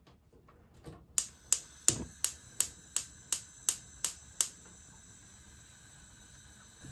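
Gas stove's spark igniter clicking about ten times, roughly three clicks a second, then stopping as the burner flame catches.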